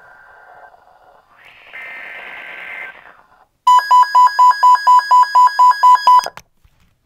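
Emergency Alert System alert tones: a short buzzy tone burst, then a loud, rapid run of about a dozen beeps, about four to five a second, that stops abruptly. They signal the start of a second alert.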